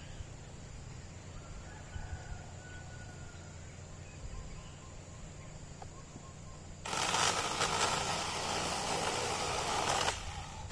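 Cordless chainsaw run in one burst of about three seconds, starting sharply about seven seconds in and cutting off sharply, over a low steady background.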